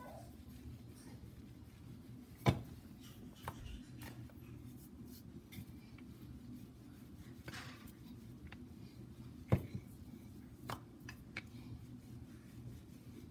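Rolling pin working dough on a granite countertop: soft rubbing with scattered light knocks and taps, the sharpest about two and a half seconds in and another near the ninth second, over a steady low hum.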